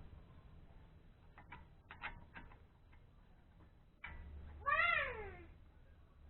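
A cat meows once, a single call that rises and then falls in pitch, after a few light clicks.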